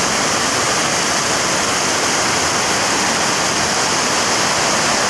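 Heavy rain pouring down and floodwater rushing along a street, a steady loud hiss of falling and running water.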